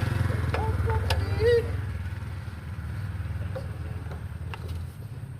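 Small petrol engine of an asphalt cutting machine running with a steady low hum, growing quieter near the end.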